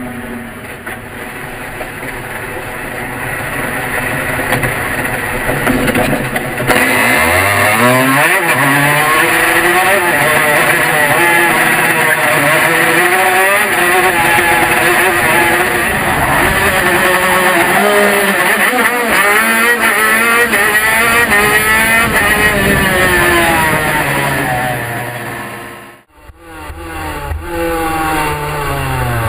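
TM 125cc two-stroke shifter kart engine heard onboard, running at low revs at first, then from about seven seconds in accelerating hard, its pitch repeatedly climbing and dropping back as it is driven through the gears. Near the end the sound cuts out for a moment, then the engine comes back.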